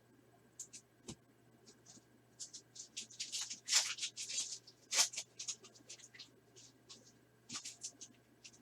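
2021 Upper Deck SP Authentic Golf trading cards sliding against one another as a pack is thumbed through by hand: a run of short papery swishes, thickest about three to five seconds in, with a couple of light taps.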